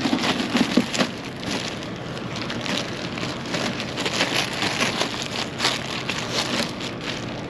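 Black plastic trash bag crinkling and rustling as hands grab and pull at it, a dense patter of small crackles.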